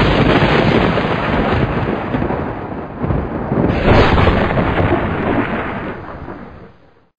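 Intro-logo sound effect: a loud, thunder-like crash of noise with a deep low end that starts suddenly, swells again about four seconds in, then fades away.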